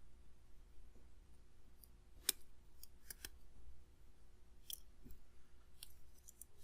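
Scattered small sharp clicks and taps of tools and parts as an iPhone 6s screen is being taken off, about half a dozen in all, the loudest about two seconds in.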